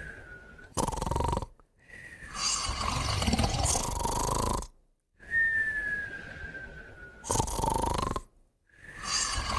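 Two sleepers, one of them a puppy, snoring together: rasping snores alternate with a thin nasal whistle that slides down in pitch. The whistle tails off at the start and comes again about halfway through, each time followed by snores.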